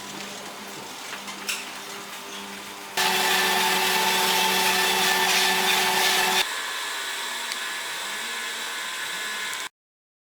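Machinery running steadily with a motor or fan hum, in three stretches that switch abruptly about three and six and a half seconds in, the middle one loudest, then cutting off suddenly near the end.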